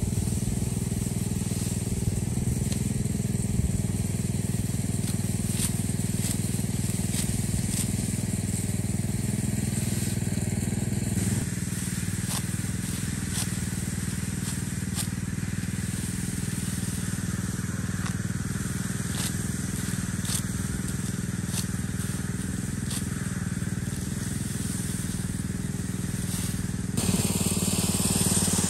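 Repeated sharp cuts of a hand sickle slicing through rice stalks, over the steady hum of a small engine-driven rice threshing machine running in the background.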